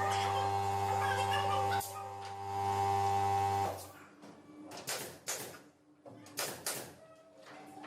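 A steady motor hum from a workshop machine that cuts off about three and a half seconds in, followed by a series of sharp knocks and taps on wood.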